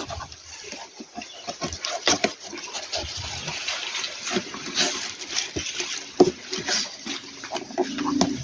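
Cardboard packing box opened by hand: the flaps scrape and fold back, and the paper leaflet and plastic wrap inside rustle. The sound comes as many irregular crackles and scrapes.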